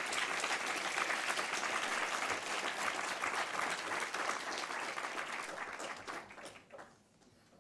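Lecture-hall audience applauding, the clapping dying away about a second before the end.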